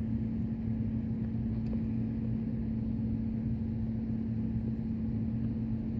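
A steady low machine hum with a constant pitch, from a motor or ventilation in the room. Nothing else stands out.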